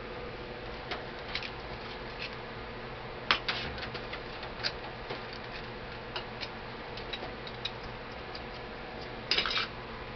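Scattered light clicks and taps of a screwdriver and small metal parts being handled while the AK-47's butt plate screws are taken out. There is a short cluster of sharper clicks about three seconds in and another near the end, over a steady background hum.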